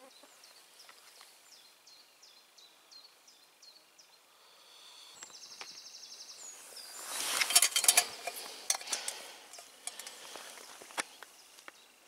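A small songbird sings a run of short chirping notes, then a fast trill about five seconds in. About seven seconds in comes close rustling with a burst of clicks and knocks, the loudest part, fading to a few scattered clicks.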